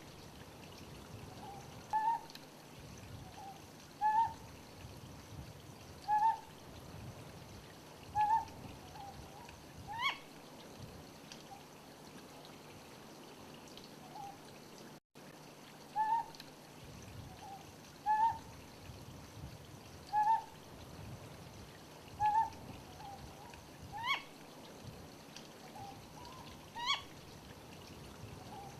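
Ryukyu scops owl calling: short low hoots, often paired, repeated about every two seconds, with an occasional sharper call that sweeps sharply upward in pitch.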